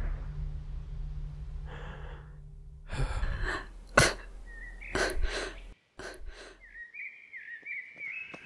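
Short, ragged gasps and breaths of a person lying wounded, with a sharp click about four seconds in, over a low drone that fades out in the first three seconds. Near the end a bird chirps repeatedly.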